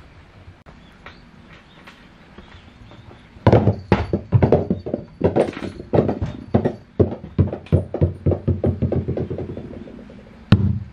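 Small rubber super ball bouncing on a wooden floor: after a few quiet seconds, a sudden run of knocks that come closer together and fainter as the ball settles, then another loud knock near the end.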